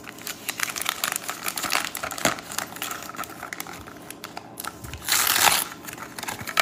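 Crinkly plastic blind-bag packet crackling as it is handled, then torn open with a loud rip about five seconds in.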